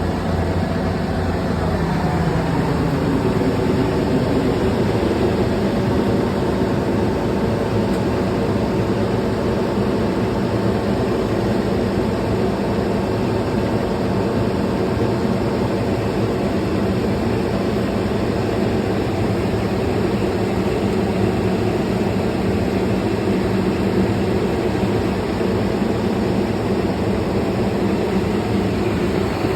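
Heavy engine running steadily under load, shifting pitch slightly in the first few seconds and then holding even, while cable is being pulled into the duct.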